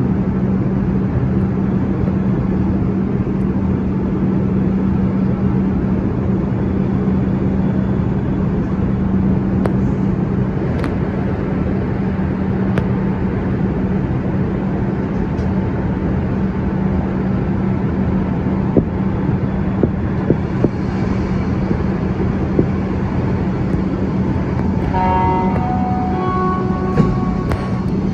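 Montreal Metro train standing at a station platform, its equipment giving a steady low hum. About 25 s in, a short chime of stepped tones sounds, the door-closing signal before departure, followed by a sharp knock near the end.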